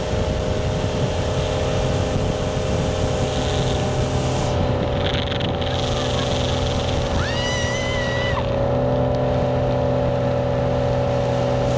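Motorboat engine running steadily while towing a tube, over wind and wake-water noise. About seven seconds in, a brief high-pitched cry rises and holds for about a second.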